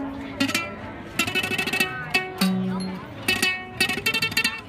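Traditional Thai music from a children's ensemble led by a plucked floor zither (jakhe). The notes are picked with sharp attacks and die away quickly, with a few held and bending notes among them.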